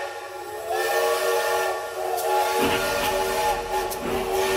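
Steam locomotive whistle blowing a long chord over a hiss of steam; a low rumble joins about halfway through.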